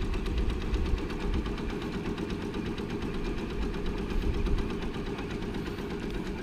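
Baby Lock Alliance embroidery machine stitching, a fast, even mechanical clatter with a low hum that runs on without a break.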